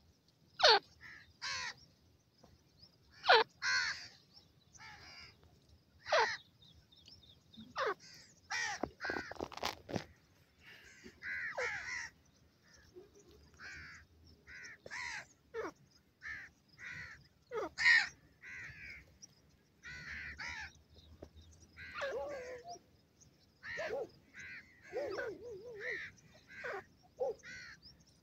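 Grey francolin giving a long, irregular series of short, harsh calls, several of them falling sharply in pitch.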